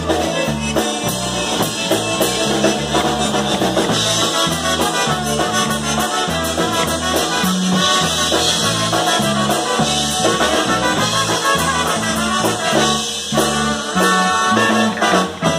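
Live Polish-American push-style polka played by a small band: two trumpets carry the melody over a piano accordion, a Chemnitzer concertina and an electric bass thumping out a steady oom-pah beat. The band stops on a final note near the end.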